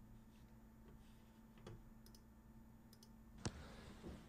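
Near silence: room tone with a few faint clicks, the sharpest about three and a half seconds in.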